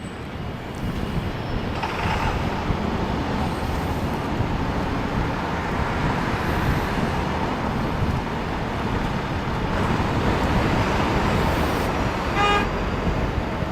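Steady city street traffic noise with a low rumble, and a short horn toot near the end.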